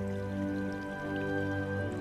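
Soft, slow background music of long held chords that change every second or so.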